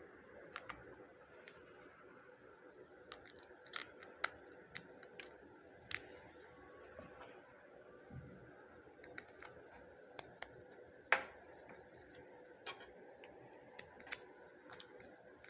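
Batteries and small plastic kit parts being handled and pressed into a plastic battery holder: irregular light clicks and taps, with one louder click about eleven seconds in, over a faint steady hum.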